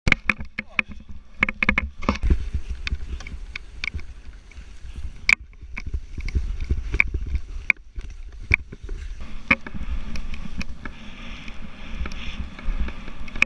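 Skiing in powder snow filmed on an action camera: wind buffeting the microphone as a steady low rumble, skis hissing through the snow, and frequent sharp clicks and knocks from the camera's handheld mount.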